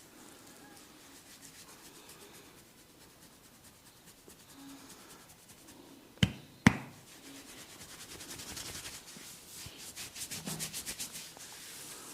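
Hands rubbing and working over skin in a massage, soft at first, broken just past the middle by two sharp, loud cracks about half a second apart, then fast, even rubbing strokes that grow louder toward the end.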